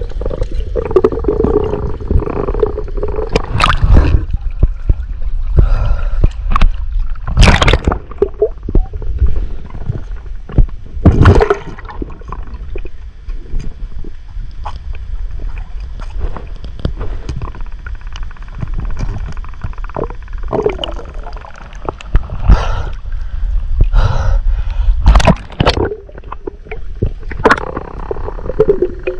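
Muffled underwater sound of water and gurgling bubbles against the microphone, with a constant low rumble. Several loud sudden knocks and bubbly rushes break through, with a short steady hum near the start and again near the end.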